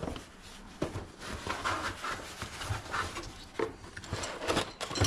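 A new door handle set being unpacked and handled: irregular rustling of packaging with light knocks and clicks of the hardware parts.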